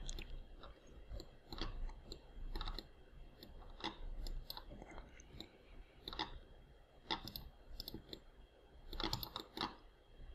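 Faint, scattered clicks of a computer mouse and keyboard, coming singly or in short clusters with pauses between, the busiest run just before the end.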